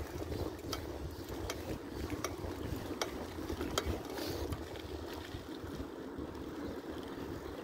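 Riding a bicycle: a steady rumble and wind hiss with regular light clicks from the bike, about one every three-quarters of a second.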